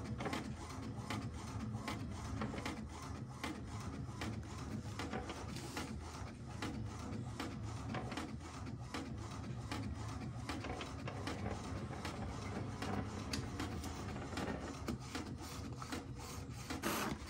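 HP Ink Tank 319 inkjet printer printing a colour photocopy: the print-head carriage runs back and forth in quick repeated passes while the page feeds out.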